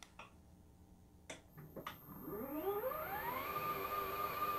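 Electric motor of an ApexDesk Elite Series height-adjustable standing desk starting up as the desk lifts: a whine that rises in pitch for about a second, then holds at a steady pitch. A few faint clicks come before it.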